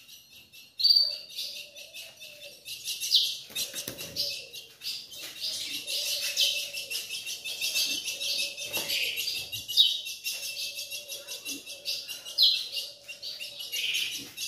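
Ultramarine grosbeaks (azulão) calling: short, sharp high chip notes about once a second, over a continuous high twittering of caged birds.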